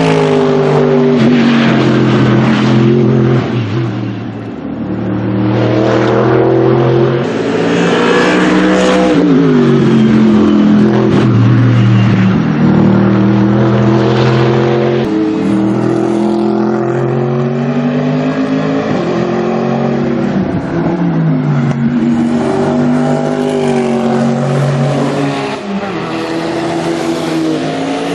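Mercedes-AMG GT3 race car's naturally aspirated 6.2-litre V8 at racing speed, revving up through the gears and dropping in pitch on lifts and downshifts, over and over. There is a brief drop in loudness about four to five seconds in.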